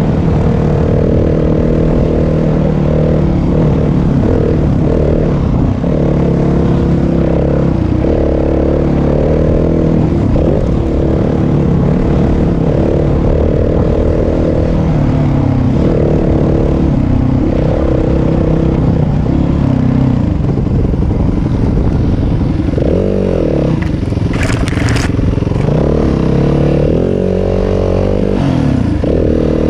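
Yamaha WR250F dirt bike's single-cylinder four-stroke engine running while being ridden, its pitch rising and falling over and over with throttle and gear changes. A brief sharp noise cuts in about 24 seconds in.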